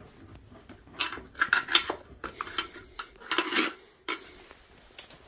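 A screwdriver scraping and clinking against a stuck metal floor-drain grate as it is pried at, in several short bouts of metal on metal.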